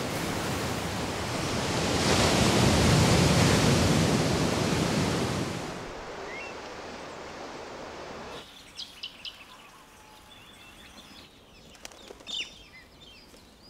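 Surf washing over rocks along the coast: a steady rush that swells to its loudest about two to five seconds in and drops away at about six seconds. From about eight seconds on, short high bird calls come several at a time over a quiet background.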